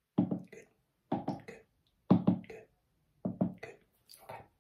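Close-miked ASMR trigger sounds: four short bursts of quick clicks and pops, about a second apart, with silence between them.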